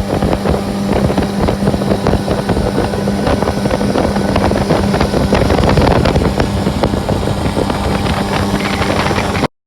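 Motorboat under way, its engine running under heavy wind buffeting on the microphone, with a steady low hum for the first few seconds; the sound cuts off abruptly near the end.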